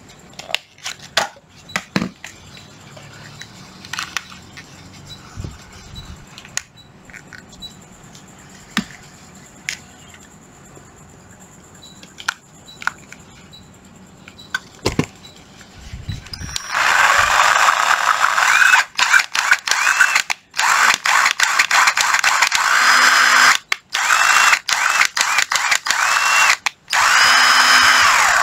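A few light clicks and taps, then about two-thirds of the way in a Ryobi cordless drill starts running on its trigger. It runs in bursts, with the motor speed rising and falling, and stops briefly a few times. This is a function test of the drill's variable-speed trigger, forward/reverse and two speed ranges.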